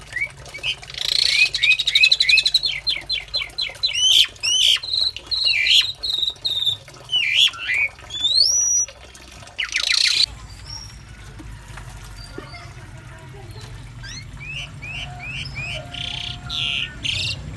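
Pied starlings (jalak suren) calling: a busy run of quick rising chirps and whistles for the first half, then sparser, with a short series of repeated rising chirps near the end, over a faint steady low hum.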